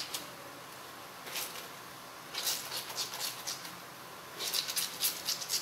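Gloved hands scrubbing and squeezing a wet cloth in a bowl of foamy soapy water: soft squelching and rubbing that comes in three short bouts.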